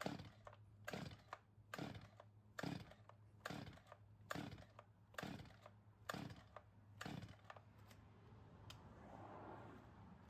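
Stihl 021 chainsaw being pull-started on half choke: the recoil starter cord is yanked about nine times, roughly once a second, and the engine does not yet catch.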